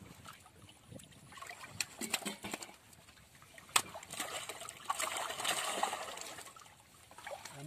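Water splashing and sloshing as live fish are taken from a net and dropped into a water-filled plastic drum, with a few sharp knocks in the first half, the loudest just before four seconds, then a longer run of splashing from about four to seven seconds.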